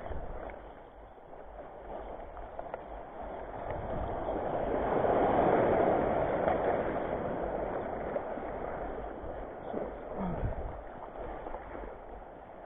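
Small sea waves washing and splashing over reef rocks in the shallows. The wash swells to its loudest about five seconds in as a wave breaks over the rock, then eases off.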